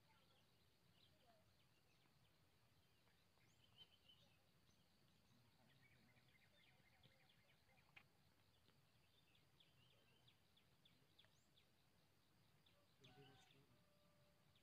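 Near silence with faint, scattered small-bird chirps across the morning lakeshore, a few a second, with a short livelier burst of calls near the end, over a faint low background hum.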